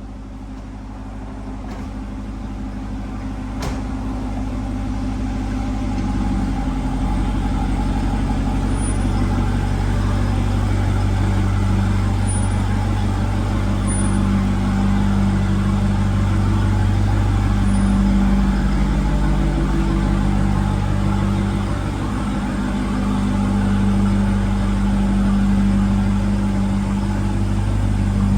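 Jeep Grand Cherokee Trackhawk's supercharged V8 running while the SUV is driven, a steady low drone that builds over the first several seconds and eases off briefly about three quarters of the way through.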